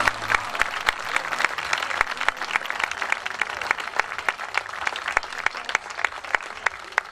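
Audience applauding: a dense, even patter of hand claps as the dance music stops.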